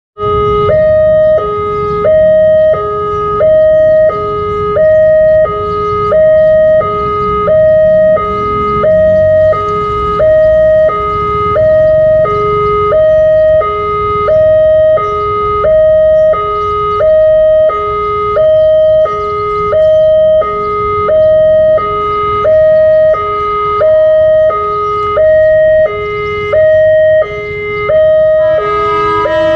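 Electronic two-tone level-crossing warning alarm on a LEN crossing pole, alternating between a higher and a lower tone about every 0.7 seconds, warning of an approaching train. Low road-traffic hum lies underneath, and a different tonal sound joins near the end.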